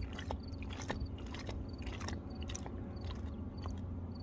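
Irregular scrapes and clicks of handling noise over a steady low hum. A faint high chirp repeats about every two-thirds of a second.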